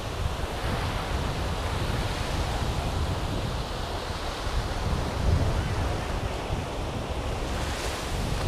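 Surf washing on a beach with strong wind buffeting the microphone, a gusty low rumble under the hiss of the water. The wash of a wave swells near the end.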